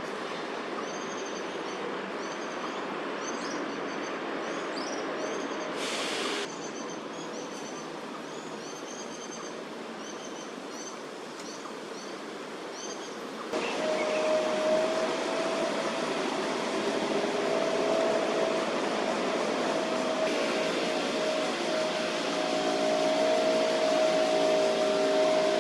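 City-park ambience: a steady background hum of traffic with birds chirping in quick, high notes through the first half. About halfway in, the sound changes abruptly to a louder, steady mechanical drone with a held hum, like a motor running.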